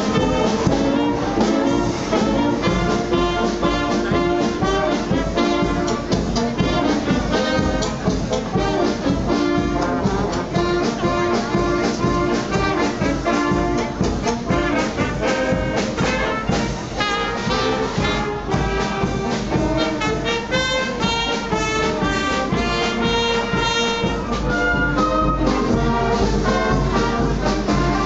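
Brass band with trumpets and tubas playing a piece, the notes moving quickly and without a break.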